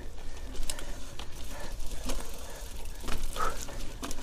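Mountain bike rattling over a rough, wet forest trail: irregular knocks and clatter from the frame and drivetrain over a steady low rumble of wind on the action camera's microphone.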